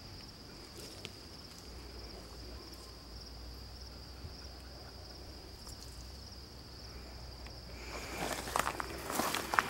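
Insects in the field keep up a steady high-pitched drone. About eight seconds in, footsteps start crunching and rustling through dry tall grass.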